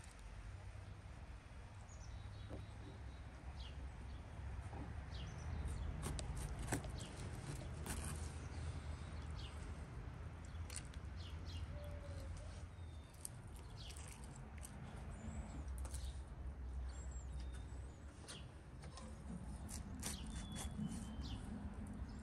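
Small wet clicks and squelches as garlic cloves are pressed by hand into slits in a roasted, twine-tied beef leg, over a low outdoor rumble with faint bird chirps now and then.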